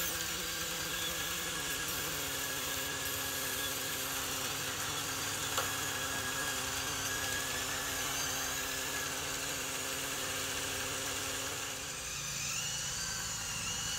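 A steady mechanical hum at an even pitch, like a small motor running, dipping briefly near the end.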